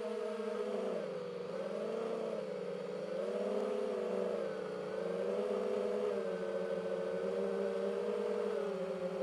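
DJI FPV drone's motors and propellers whining. The pitch dips twice in the first few seconds as the throttle eases and climbs back, then holds fairly steady with small rises and falls.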